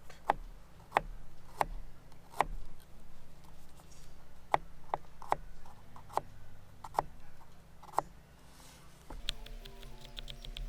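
Small wood fire crackling in a camp stove under a grill: sharp, separate snaps about once a second. Near the end a fast, even ticking starts, with a few held tones.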